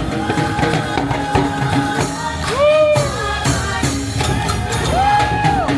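Upbeat music with a tambourine shaking along and a singing voice; two long sung notes swell and fall away, one about halfway through and one near the end.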